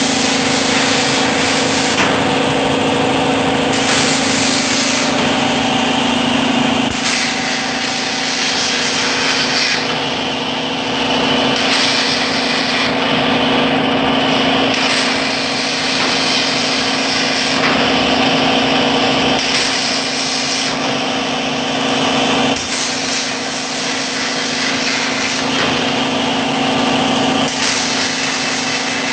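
CNC fibre laser cutting machine running: a steady hum under a rushing hiss that shifts every second or two as the cut changes.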